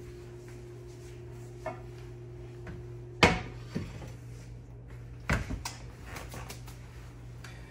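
Kitchen clatter of dishes and utensils knocking against a counter. There is a sharp knock about three seconds in, another about two seconds later, and a few lighter clicks, all over a steady low hum.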